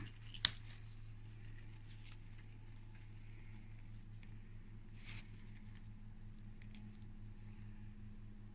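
A hand handles a cucumber on its vine with soft rustles and a sharp click about half a second in, over a steady low hum.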